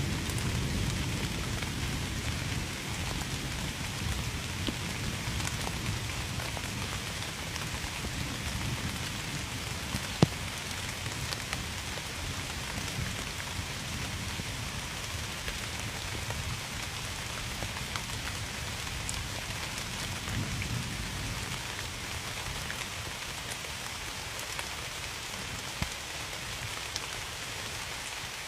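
Steady rain falling, with individual drops tapping sharply here and there; one drop about ten seconds in lands louder than the rest. A low rumble underlies the first few seconds and fades.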